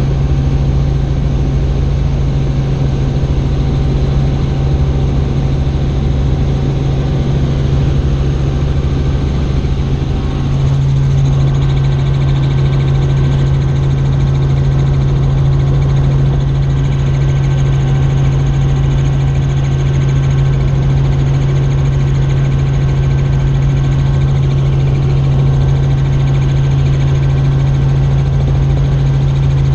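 Helicopter in flight: a loud, steady drone with a strong low hum, growing slightly louder about ten seconds in.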